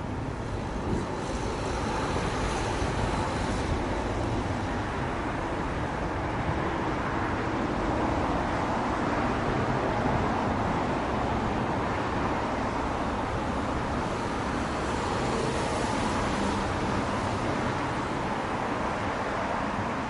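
Steady road traffic noise from passing vehicles, with the tyre hiss swelling a couple of seconds in and again about fifteen seconds in.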